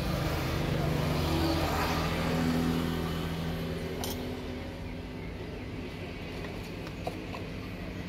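A steady engine hum, louder for the first three seconds, with light metallic clicks about four seconds in and again near the end.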